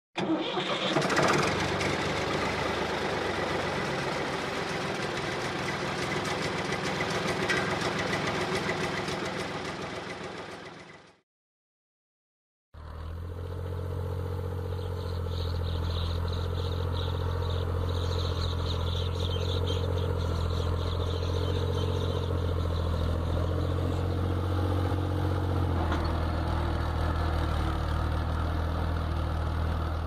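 A dense, noisy sound over the opening seconds stops about eleven seconds in, followed by a brief silence. From about thirteen seconds a tractor's diesel engine runs steadily with a strong low hum while pulling a tine cultivator through ploughed soil.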